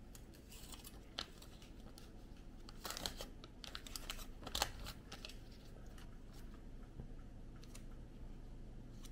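Faint crinkling of aluminium foil in short, irregular bursts as a strip is folded and pressed around a fingertip over a cotton pad, a foil wrap for soaking off nail polish. The crinkles are loudest about three seconds in and again shortly before the middle.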